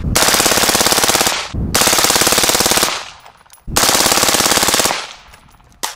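Suppressed LaRue Tactical SUURG 5.56 mm rifle firing on full auto: three long bursts of rapid fire, each a second or so long, with short pauses between them.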